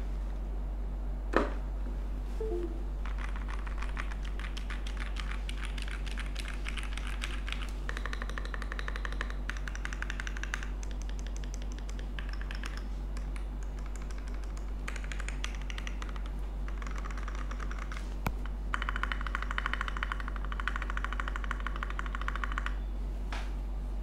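Qwertykeys QK60 mechanical keyboard, with an acrylic top case, aluminium plate and lubed and filmed TTC Heart switches, being typed on fast in several bursts of rapid keystrokes with short pauses between. A single louder knock sounds about a second in, before the typing starts.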